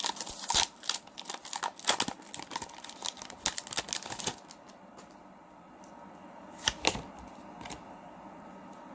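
Foil booster-pack wrapper being torn open and crinkled by hand, a dense run of crackles for about four seconds. After that it goes quieter, with a couple of sharp snaps about seven seconds in.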